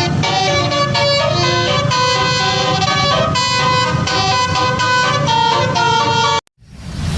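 Bus telolet horn, a Basuri multi-note air horn, playing a stepping melody of several tones over a low rumble. It cuts off abruptly about six and a half seconds in and is followed by a brief whoosh.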